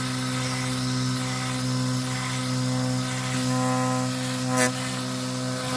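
Small brushed DC motor running on 12 volts and spinning a homemade two-blade plastic-bottle propeller: a steady, even hum. A single brief tick comes near the end.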